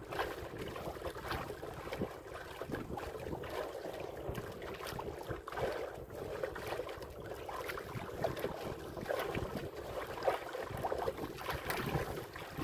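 Wind buffeting the microphone over choppy sea water that splashes irregularly against a small wooden outrigger boat.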